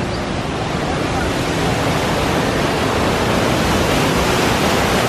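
Waterfall pouring over rocks: a steady rush of falling water that grows a little louder toward the end.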